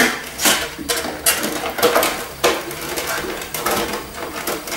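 Hands working the lid off a metal Pokémon card tin and handling the tin and the booster packs inside: a string of irregular metallic clicks, knocks and rattles, several a second.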